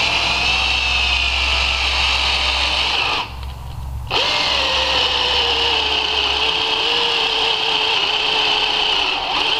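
Cordless drill boring a hole into a cast aluminium intake manifold, the motor running at a steady pitch under load. It stops once about three seconds in and starts again about a second later.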